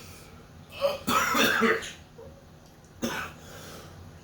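A man coughing hard as food catches in his throat while he eats noodles: a long rough coughing fit about a second in, then a shorter cough about three seconds in.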